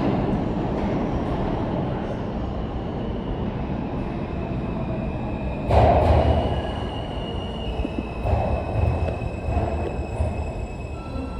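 R160 subway train running through the station with a steady rumble. About halfway there is one sudden loud clank, after which a thin, high, steady squeal sounds over uneven low rumbling.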